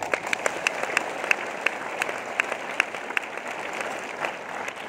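Audience applauding, many hands clapping together in a dense, steady patter of claps.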